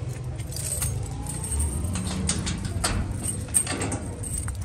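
Keys jangling and clicking at the lock of a steel roll-up shutter, several short sharp metallic clicks, over a steady low rumble.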